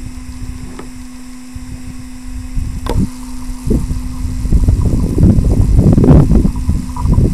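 Wind buffeting a helicopter-mounted camera's microphone, a low rumbling that grows loud from about four seconds in, over a steady low hum. A single sharp click about three seconds in.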